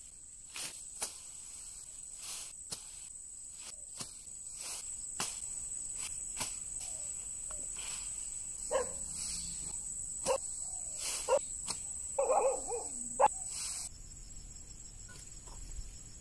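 Insects trilling steadily in one high, unbroken tone that stops near the end, over scattered clicks and rustles of roselle stalks being cut and handled. A few short, lower calls from an animal come in the middle.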